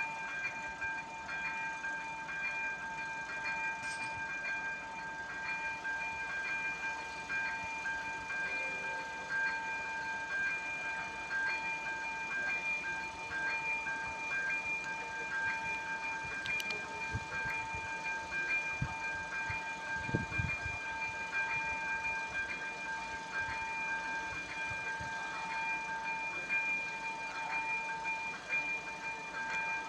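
Czech level-crossing warning signal ringing continuously while the barriers are down, a steady bell-like tone struck again about every 0.7 seconds, warning that a train is approaching.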